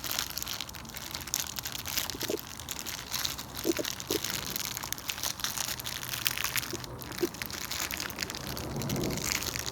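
Plastic packaging crinkling and rustling as it is handled and opened, a dense run of small irregular crackles.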